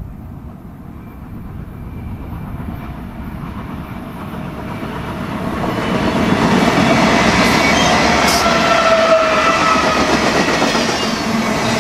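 BNSF freight train with a lash-up of diesel locomotives approaching and passing close by, its rumble swelling to full loudness about halfway through, then double-stack intermodal cars rolling past with wheels clattering on the rails.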